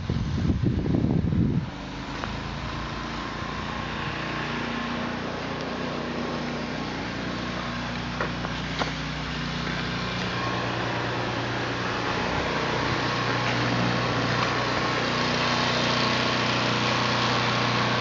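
A small engine running steadily, its pitch shifting about twelve seconds in and slowly growing louder. Wind buffets the microphone for the first couple of seconds.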